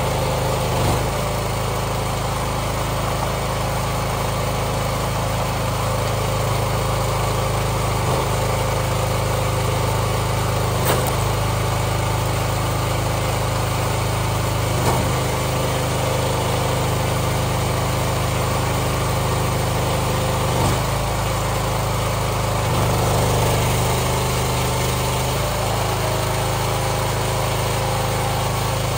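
Small gas engine of a hydraulic log splitter running steadily, its note shifting every few seconds as the ram is worked through the rounds, with a few sharp knocks.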